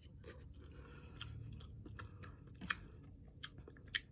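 A person chewing a mouthful of thick instant ramen noodles, with faint, scattered wet mouth clicks.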